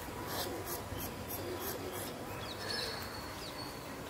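A dog sniffing hard in quick short bursts, about four a second. A few faint high chirps come in over the second half.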